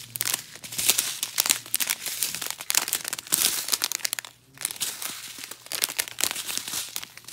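Small plastic bags of diamond-painting drills crinkling as they are handled and turned over one after another, with a brief pause a little after halfway.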